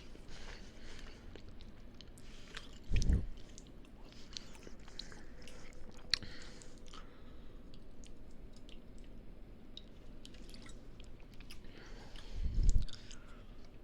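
Close-miked chewing and biting of a burrito: wet, squishy mouth sounds with small clicks. Two low thumps stand out, about three seconds in and again near the end.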